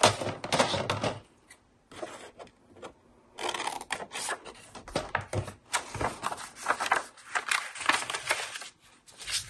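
Scissors cutting through a folded paper book page, with crackly snipping and paper rustling, after a brief pause about a second in.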